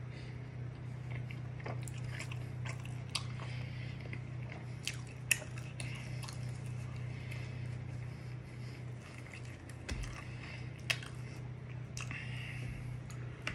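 A man chewing and biting naan bread, with scattered small mouth clicks, over a steady low hum.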